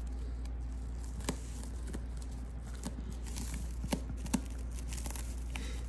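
A prairie dog shifting and nibbling in a hay-lined woven grass hut: a few faint, scattered rustles and small clicks over a steady low hum.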